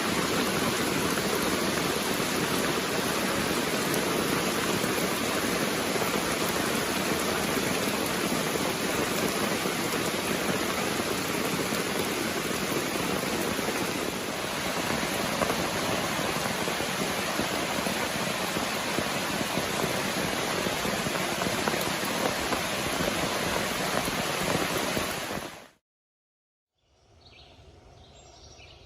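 Heavy rain coming down steadily, a dense even hiss; it cuts off near the end.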